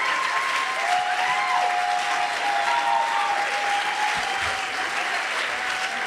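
Live audience applauding steadily, with some voices cheering over the clapping.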